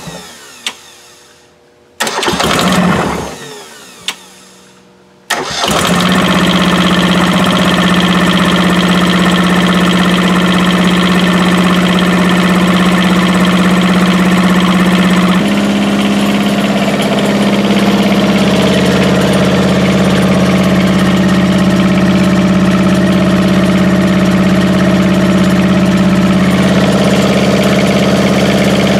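Kubota Z482 two-cylinder diesel engine firing briefly and dying away twice, then catching about five seconds in and running steadily, its speed stepping up slightly about fifteen seconds in. It is starting after its fuel system has been bled of air.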